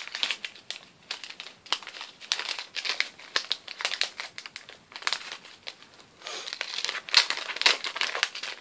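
Shiny gift wrapping crinkling and rustling as a small present is handled and unwrapped by hand, in irregular crackles that grow loudest about seven seconds in.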